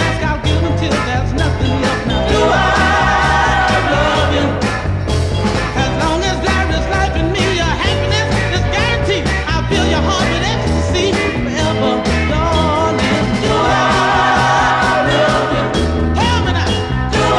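Northern soul record playing, with singing over a steady beat.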